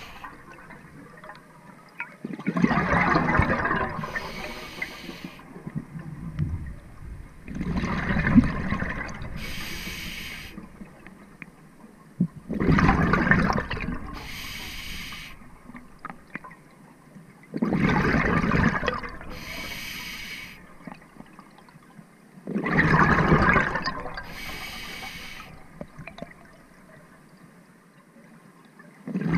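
Scuba diver breathing through a regulator underwater: exhaled bubbles rush out in a loud burst about every five seconds, five times, each dying away slowly, with a short hiss of the regulator between them.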